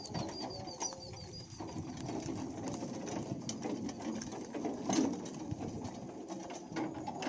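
Bullock cart rolling along a dirt track, its metal body and wheels rattling steadily as the bullocks pull it. A small bird chirps in quick repeated notes during the first second and a half.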